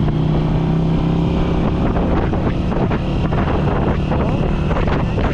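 Small motorcycle engine running as the bike rides along, heard from the rider's seat, with wind buffeting the microphone.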